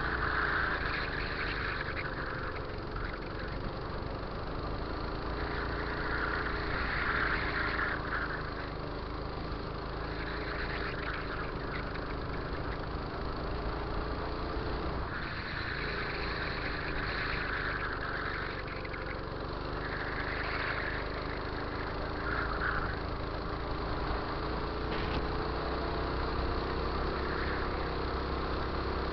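Go-kart engine running at racing speed, its pitch rising and falling through the laps, with a sharp drop about halfway through as the kart slows.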